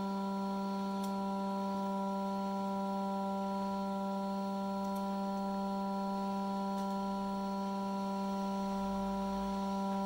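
Hot air rework station's blower running steadily: a constant hum with a strong low tone and a row of evenly spaced overtones, with a few faint ticks.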